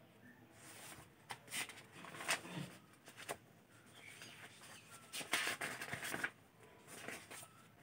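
Paper rustling and crackling as the pages of a paperback textbook are flipped. There are several short crackles, then a longer rustle about five seconds in.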